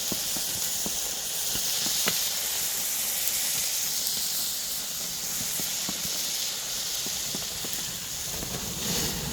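Pork belly sizzling on a cast-iron cauldron over a wood fire: a steady hiss with scattered pops of spitting fat. The fire is too hot and the meat is starting to burn.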